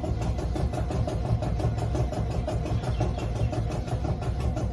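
Heritage electric tram running, heard from inside its wooden car: a steady low rumble with a fast regular pulsing.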